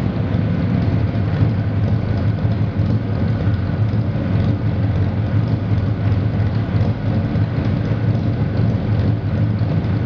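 1972 Chevrolet C-10 pickup's V8 idling steadily through new true dual exhaust with glasspack mufflers, a low, even exhaust note.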